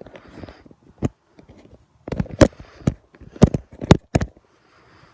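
A series of sharp knocks and bumps, one about a second in, a cluster around two to two and a half seconds and three more near the end, with faint rustling between them.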